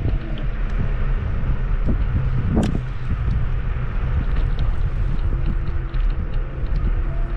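Steady rumble and wind buffeting on the microphone while riding a Kugoo G2 Max electric scooter over a rough forest path, with scattered small clicks and one sharp knock about two and a half seconds in.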